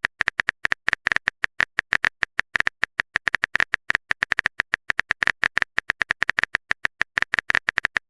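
Rapid, irregular clicking of a keyboard-typing sound effect, several short sharp clicks a second.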